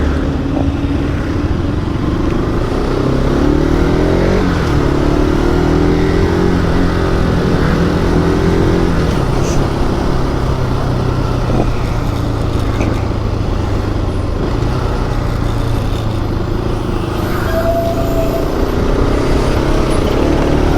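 Motorcycle engine running while being ridden: it revs up in pitch over the first few seconds, drops at a gear change about four seconds in, then holds a steady cruising note, with wind rumble on the microphone.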